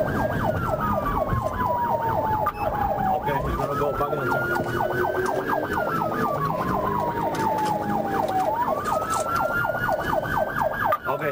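Police car siren sounding two tones at once. A slow wail rises quickly and then falls slowly, about every five seconds, under a fast repeating yelp. It is heard from inside the pursuing patrol car.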